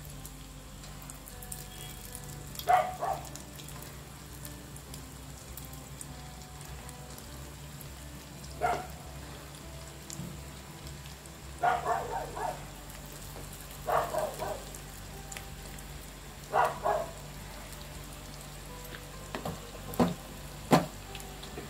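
Balls of thick batter deep-frying in hot oil with a steady sizzle. Every few seconds it flares into a short, louder burst of sizzling as another small portion of batter is dropped in. Near the end come two sharp knocks.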